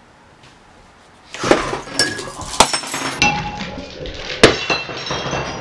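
Something glass breaking: a crash about a second and a half in, then sharp clinks and rattles of pieces over the next few seconds.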